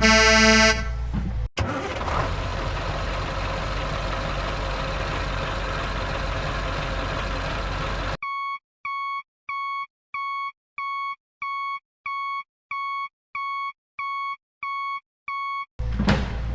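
A horn honk ends just after the start, followed by a steady engine-like rumble. About eight seconds in, the rumble stops and a string of about a dozen evenly spaced electronic beeps follows, like a truck's reversing alarm, with dead silence between them. The rumble returns near the end.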